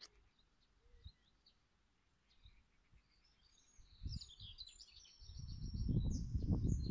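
Small birds chirping and twittering in quick high notes. From about five seconds in, a loud low rumble on the microphone rises and covers the birdsong.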